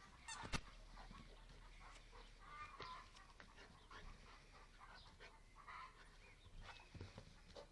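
A rooster clucking in short, faint calls scattered through, with one sharp knock about half a second in.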